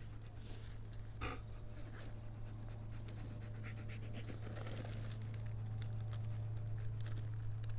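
Dog panting with its mouth open, over a steady low hum.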